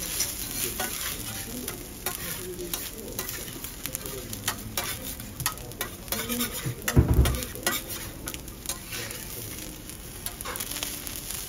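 Oil and garlic sizzling on a steel teppanyaki griddle while garlic rice is made, with frequent sharp clicks and scrapes of the metal spatula on the plate. There is a dull thump about seven seconds in.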